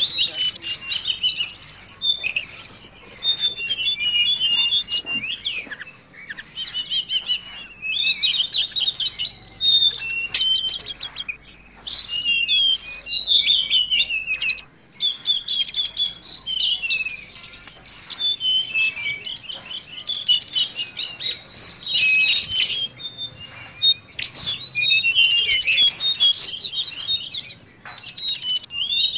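Tledekan laut (a blue flycatcher) singing a fast, continuous twittering song of high chirps and trills, with a brief pause about halfway through.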